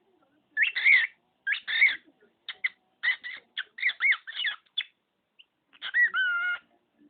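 Pet cockatiel talking in its high, scratchy mimicry of human speech: a string of short chattered phrases, then one short held whistled note about six seconds in.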